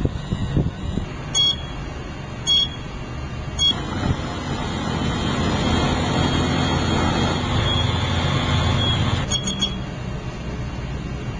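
Stealth Telecom ST940B NVIS loop antenna's control unit giving short warning beeps about once a second. The drive motor then runs steadily for about five seconds as it raises the loop, and stops with a quick triple beep once the loop is up.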